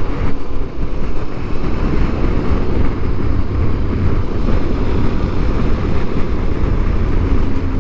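Heavy, steady wind rush on the microphone over an Aprilia Tuareg 660's parallel-twin engine running at an even cruising speed.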